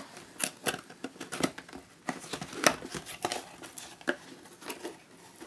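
Cardboard CPU-cooler box being opened by hand: irregular scrapes, taps and crinkles as the flaps are worked and the white inner carton slides out of its printed sleeve, with one sharper snap about two and a half seconds in.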